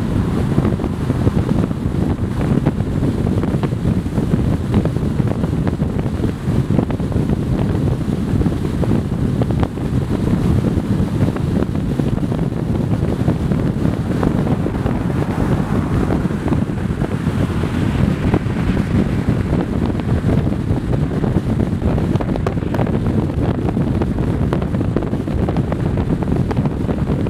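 Steady wind noise on the microphone from a car moving at road speed, with the rumble of tyres and road noise underneath.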